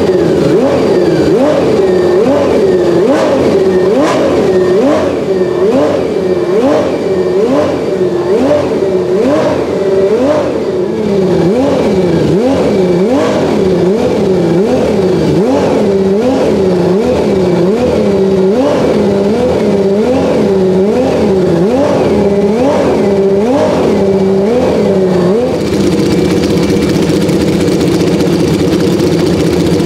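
Lamborghini LE3512 3.5-litre V12 of a 1992 Minardi M192 Formula 1 car being warmed up, the throttle blipped in quick regular revs of about three every two seconds, each rising from idle and dropping straight back. About 25 seconds in the blipping stops and the engine settles to a steady idle.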